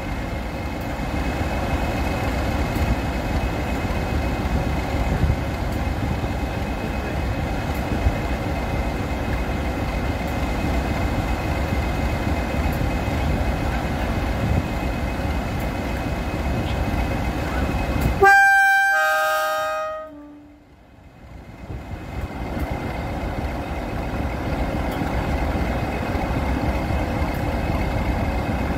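Class 20 diesel locomotive's English Electric eight-cylinder engine idling steadily at a standstill. About two-thirds of the way through, a short two-note horn blast sounds, a higher note and then a lower one.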